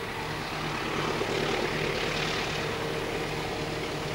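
Steady engine hum, with a rush of noise that swells about a second in and eases off near the end.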